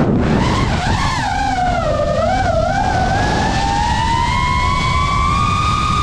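FPV quadcopter's brushless motors whining with prop wash rushing underneath. The pitch starts low and wavers up and down for the first few seconds, then climbs steadily and holds high as throttle comes back on.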